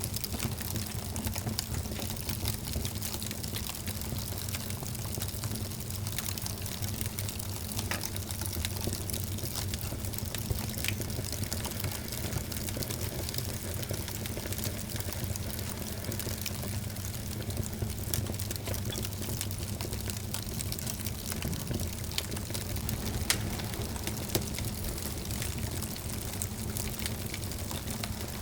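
Wood fire burning in a fireplace: a steady low rumble and hiss of the flames with frequent small crackles and a few louder pops.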